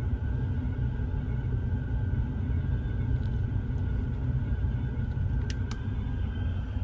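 Steady low rumble with a faint steady high tone over it, and a few light clicks late on.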